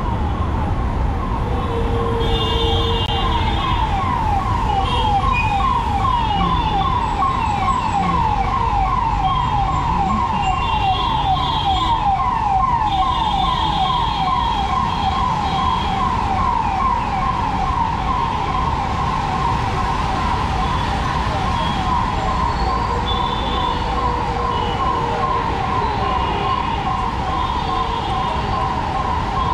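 Emergency vehicle siren in fast yelp mode, its pitch sweeping over and over several times a second without a break. Steady street traffic noise runs underneath.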